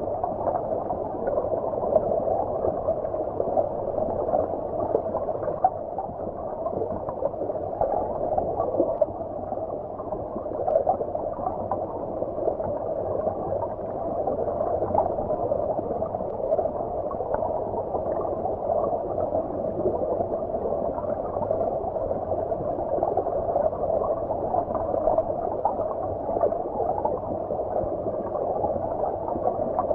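Muffled, steady gurgling of stream water heard from underwater, dull with no bright splashes, with faint occasional ticks.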